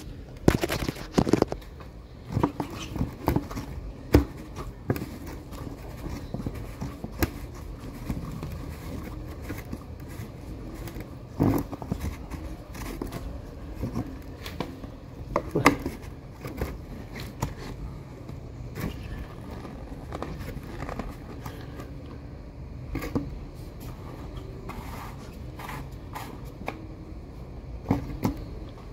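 Handling noise: the corrugated plastic hose of an electric paint sprayer being handled with rubber-gloved hands, giving scattered scrapes, rustles and clicks, with a few sharper knocks spread through. The sprayer is not running.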